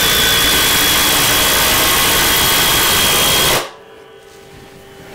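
Two cordless impact drivers, a Flex 24V FX137A and a Milwaukee M18 Fuel 2853-20, both on speed 3, hammering together as they drive bits into stacked wood: a loud, steady rattle with a thin high whine. Both cut off suddenly a little over three and a half seconds in.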